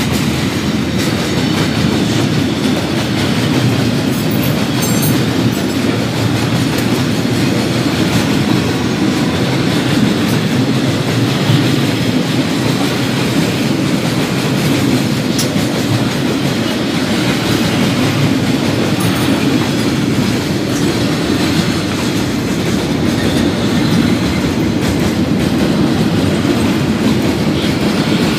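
Freight train of container wagons rolling past close by: a loud, steady noise of steel wheels running on rail.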